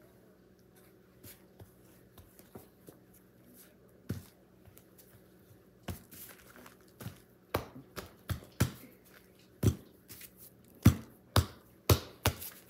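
Hands kneading and patting a ball of dough on a kitchen counter: irregular soft slaps and knocks, sparse at first, then more frequent and louder over the last few seconds.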